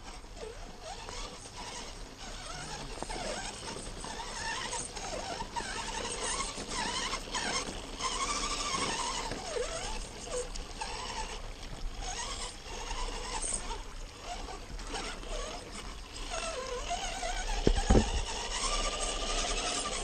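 RC crawler truck's electric motor and drivetrain whining as it drives over a dirt trail, the pitch rising and falling with the throttle. A couple of sharp knocks near the end.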